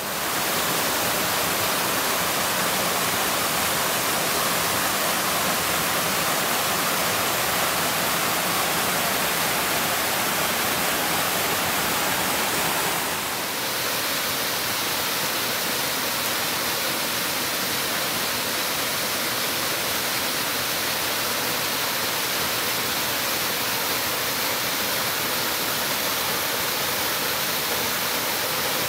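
Waterfall's rushing water: a steady, even roar of falling water, which shifts slightly and drops a little in level about 13 seconds in.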